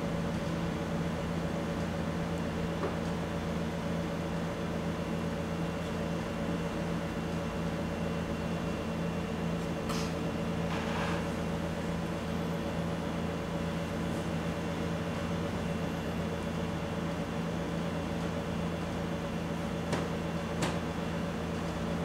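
Steady mechanical hum made of several fixed low tones, with a few faint brief rustles about ten seconds in and twice near the end.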